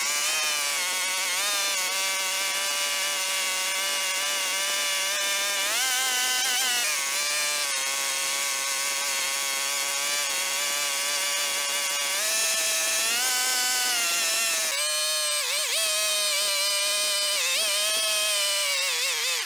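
Small chainsaw running at a steady speed, held clear of the wood and not cutting. Its pitch rises briefly about six seconds in and again around twelve seconds, and wavers unevenly near the end.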